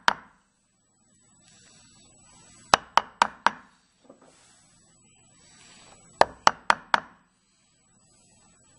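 A wood chisel being struck to outline a hinge mortise in a pine box edge, giving sharp knocks. They come in two quick runs of four or five knocks, about three seconds apart, with faint rustling between.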